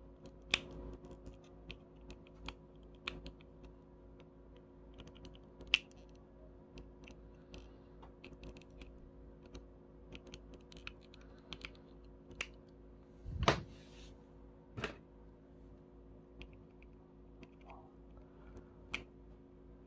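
Small scattered clicks and taps of tools and small parts as a Shimano Miravel spinning reel is taken apart, with one louder, longer clatter about two-thirds of the way through. A faint steady hum runs underneath.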